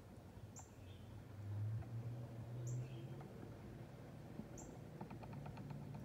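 Northern cardinal giving sharp, high chip calls, three of them about two seconds apart, over a low steady hum that swells a second or two in.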